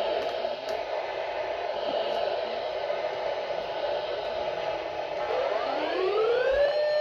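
A steady noisy hiss, then about five seconds in a siren starts to wind up, its wail rising in pitch and levelling off.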